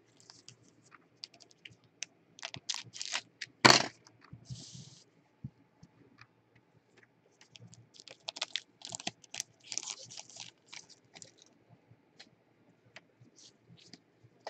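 Trading card pack wrapper being torn open and crinkled by gloved hands, with the cards handled: irregular crackles and clicks, and one sharp loud crack almost four seconds in.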